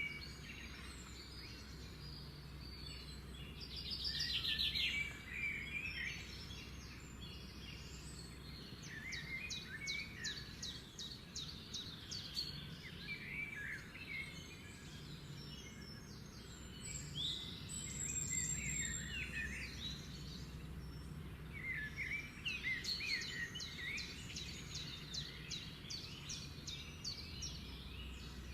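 Several birds singing, a mix of short chirps and quick high trills, over a steady low hum.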